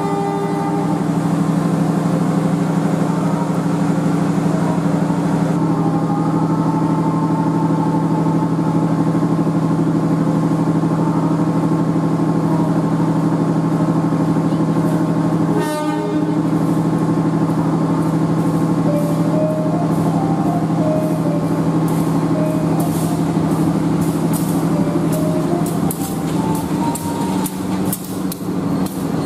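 Diesel train at a station platform: a steady engine drone throughout. In the last few seconds a locomotive rolls slowly past, its wheels clicking over the rail joints.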